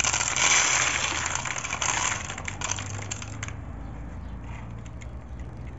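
A handful of dry popcorn kernels is poured and rattles into a plastic funnel, a dense patter of small hard clicks for about three and a half seconds. After that only a few scattered clicks remain.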